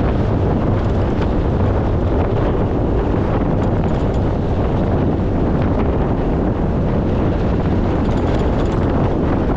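Steady wind rush buffeting an action camera's microphone on a moving motorcycle, with the motorcycle's engine and road noise running underneath at cruising speed.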